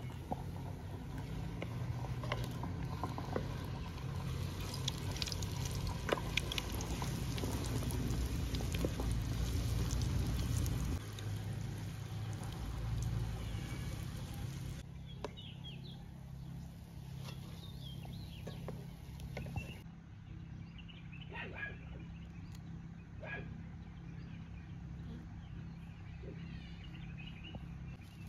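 Ring donuts frying in oil in a pan over a wood fire, a steady sizzle over a low rumble. In the later part, birds chirp with short calls.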